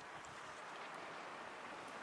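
Sea waves washing on the shore, a steady hiss of surf.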